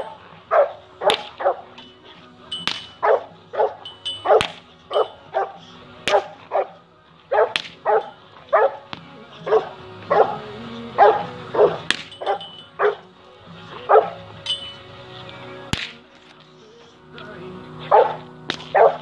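American Bully dog barking over and over in drive during bite work, about two barks a second, with a pause of a couple of seconds near the end. A few sharp knocks come in between the barks.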